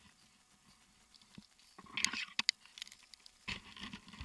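Close rustling and scraping with a few sharp clicks, in two short spells: about two seconds in and again near the end. These are the handling noises of a tree climber gripping and moving on his climbing rope and gear.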